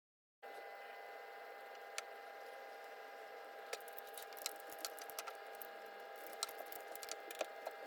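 Faint steady hum with a few fixed tones, joined from about halfway in by a scatter of light, sharp clicks and ticks, like small hard objects being handled.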